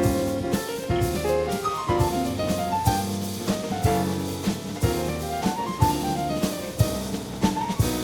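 Background music: an upbeat jazzy tune with a drum kit keeping a steady beat under melodic piano-like notes.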